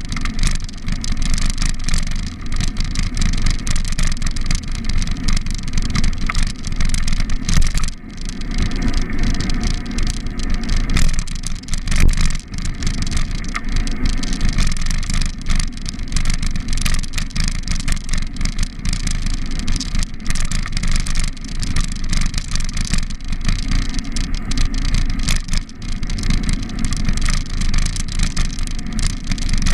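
Riding noise on a bicycle: wind rumbling on the microphone with frequent small bumps and rattles, and car traffic passing on the road alongside.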